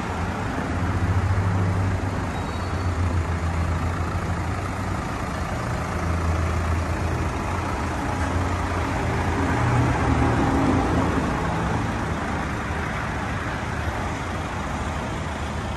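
Vehicle engine idling: a steady low rumble that swells slightly about ten seconds in.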